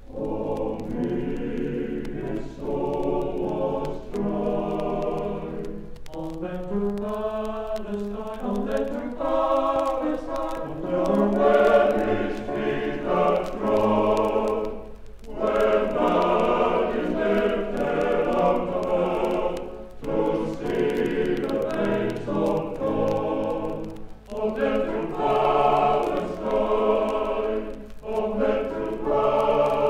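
Male voice choir singing in harmony from a 1970 LP record, phrase after phrase with brief pauses between lines.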